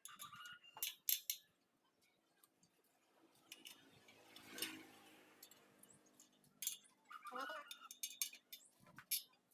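Light metallic clinks and taps from working on a spoked motorcycle wheel, scattered throughout. In the middle, a humming sound swells up and fades away, and there is a short pitched call about three quarters of the way through.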